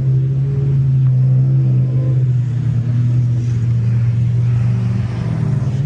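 Car engine running steadily at low revs, a deep, even drone that holds its pitch.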